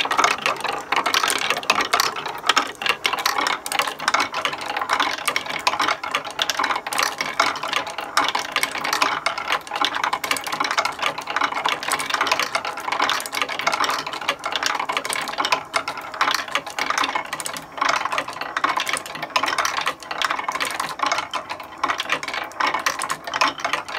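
Wooden marble machine running: glass marbles click and clatter as they climb a wooden spiral screw lift, roll along wooden tracks and drop into a wooden bowl, in a dense, unbroken stream of small clicks.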